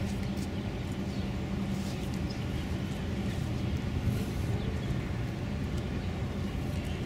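Steady low drone with a constant hum from a large container ship's engines as it passes close by.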